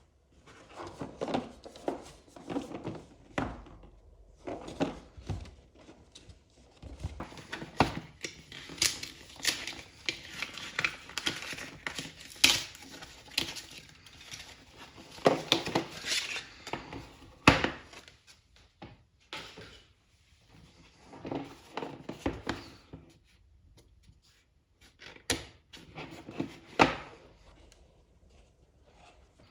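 Cardboard and plastic packaging being handled and opened by hand: irregular rustling and tearing in stop-start spells, with scattered knocks and sharp clicks.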